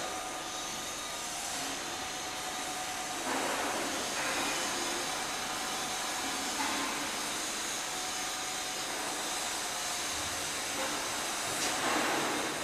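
A steady hiss, swelling a little about three seconds in and again near the end.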